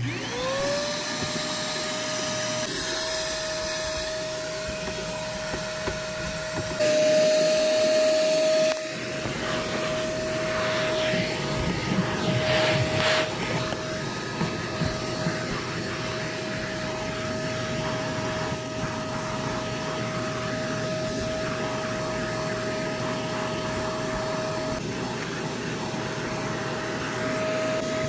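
Vacuum cleaner switched on, its motor whine rising quickly as it spins up, then running steadily while the crevice nozzle is worked over car floor carpet. There is a louder stretch about seven to nine seconds in, and some scratchy rustling of the nozzle on the carpet a few seconds later.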